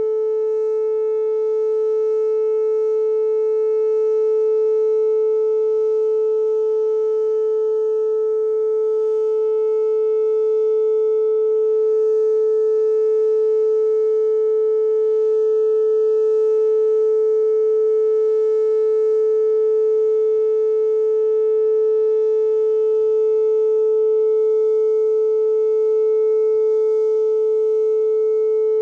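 Whelen WPS-2807 electronic outdoor warning siren sounding a loud steady tone that holds one pitch without rising or falling, during its monthly test.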